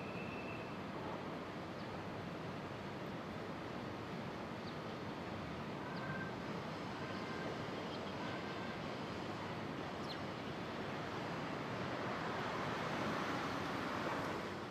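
Boeing 777-200 airliner climbing out after takeoff: the steady, distant noise of its twin jet engines, swelling slightly near the end.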